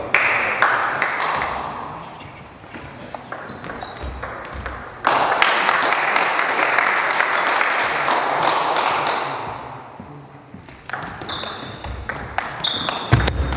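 Table tennis ball pinging off bats and the table in a rally near the end, with two spells of noisy, clicking sound from the hall, a short one at the start and a longer, louder one in the middle.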